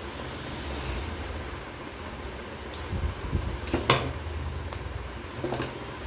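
Light clicks and rustles of control wires being handled and pushed into wiring duct and terminal blocks, over a steady low background hum. The loudest clicks come a little past the middle.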